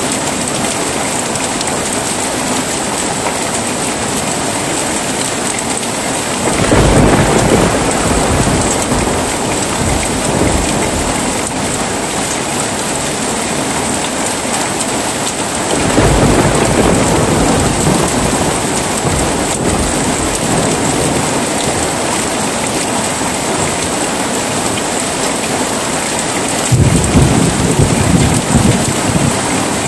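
Heavy rain falling steadily, with three rolls of thunder rumbling through it: the first about a quarter of the way in, the second about halfway, the third near the end.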